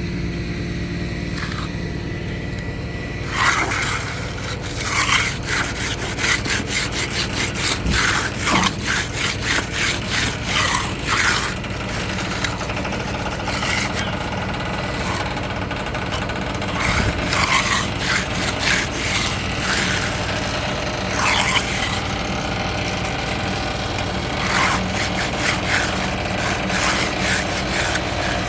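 Hand tool scraping and rubbing soft, fresh concrete along a slab edge and its formwork boxing. It makes runs of quick strokes, about two a second, with a pause in the middle. An engine runs steadily underneath.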